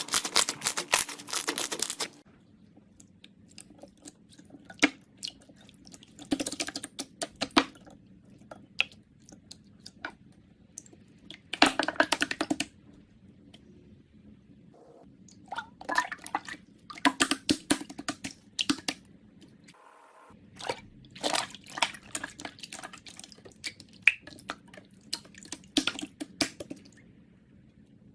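Slime being squished, poked and stretched by hand: bursts of quick wet clicks and pops, separated by quieter pauses.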